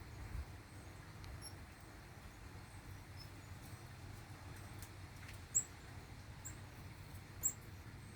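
Small birds giving short, high chirps over a faint steady background hum: a few soft chips early on, then three louder chirps about a second apart in the last few seconds.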